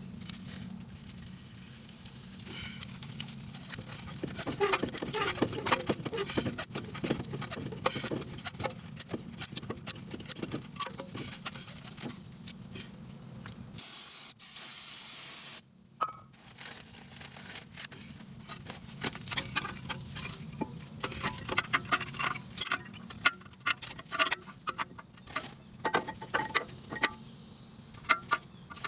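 Hand tools and brake parts clicking and clinking during front brake caliper and pad work, with a loud hiss lasting about two seconds near the middle.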